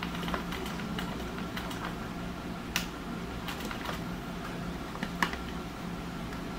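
Manual straight-stitch sewing machine worked slowly by its hand wheel, its needle mechanism clicking and ticking irregularly as it stitches through the fabric, with two sharper clicks. A steady low hum runs underneath.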